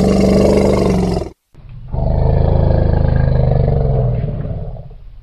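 Two long, deep animal roars: the first breaks off sharply a little over a second in, and the second, longer one fades away near the end.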